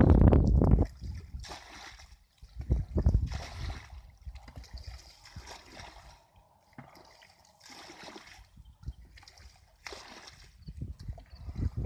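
Water splashing and sloshing in irregular bursts, with heavy low rumbles on the microphone near the start and again about three seconds in.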